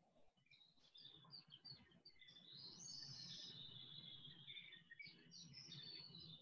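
Faint birdsong: small birds chirping and twittering, with a longer warbling run about three seconds in, over a low steady background hum.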